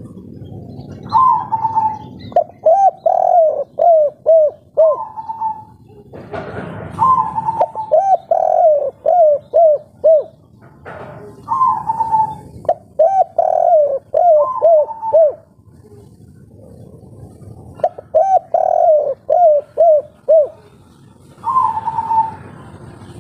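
Spotted dove cooing its 'kuk 3' song: about four phrases, each a higher opening coo followed by a quick run of short, clipped coos, with pauses between, and a fifth phrase starting near the end.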